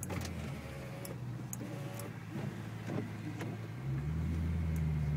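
Maserati's engine heard from inside the cabin, a steady low hum that grows louder about four seconds in and holds at the higher level.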